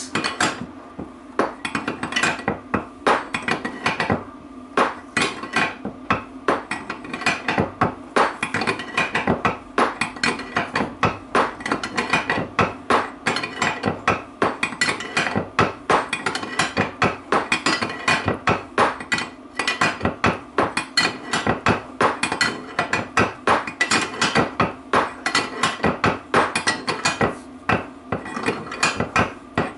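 Ratchet wrench clicking in a steady run of quick strokes, several a second. It is winding a nut down a threaded-rod puller to press the pinion bearing outer race into a Land Rover Freelander 2 rear differential case.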